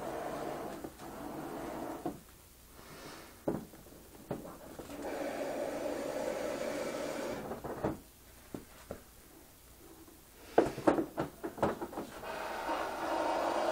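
Small handheld electric power tool running in spells, its motor humming steadily, then stopping twice. Sharp clicks and knocks fill the pauses, with a quick cluster of loud knocks just before the motor starts up again near the end.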